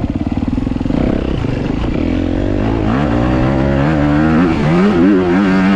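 Dirt bike engine running. It is low and choppy for about the first second, then revs up from about three seconds in, dips in pitch and climbs again near the end.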